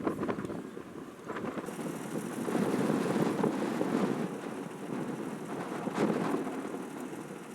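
Strong wind buffeting the microphone, a rumbling noise that swells and eases in gusts, with a short click about six seconds in.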